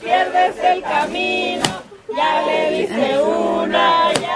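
A party crowd of men and women singing together in chorus, breaking off briefly about halfway, with two sharp knocks, one before the break and one near the end.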